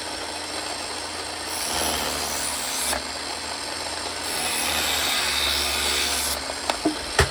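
Electric knife sharpener's motor running with a steady hum while a knife blade is drawn through the grinding slot twice, each pass a rasping hiss of steel on the abrasive, the second one longer. A few light clicks near the end.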